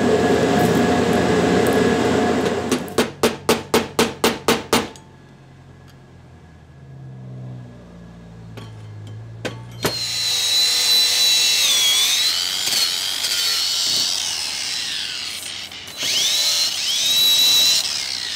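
Corded angle grinder with a wire wheel running on a rusty brake hub and rotor: a high motor whine that wavers under load for several seconds, stops, then spins up again and runs down near the end. Earlier, a quick run of about nine sharp knocks, some four a second.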